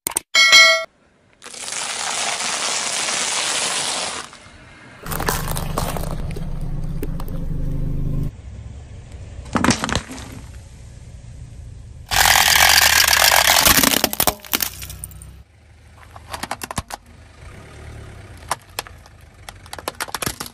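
A car tyre rolling over and crushing things. Soda bursts out under the wheel in long hissing sprays, twice, and there is a sharp crack about ten seconds in. Near the end a plastic toy truck cracks and crunches under the tyre, and a short click and chime sound under a second in.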